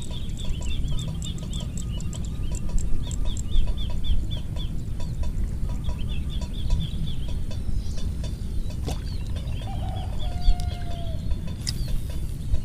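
Steady low rumble of wind on the microphone, with birds chirping in runs of quick high notes through it. A short sharp swish comes near the end.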